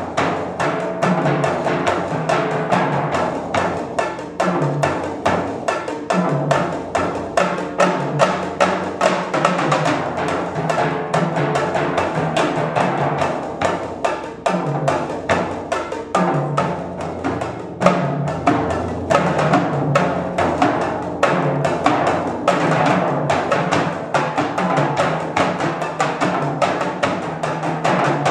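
Percussion quartet on bongos, timbales, concert toms, bass drum and timpani playing a fast, driving passage, many strokes a second without a break, the low tuned drums moving between notes.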